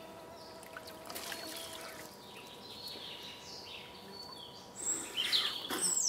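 Small birds chirping in a forest, short falling calls, over the faint noise of a trickling stream; about five seconds in comes a louder patch of splashing water.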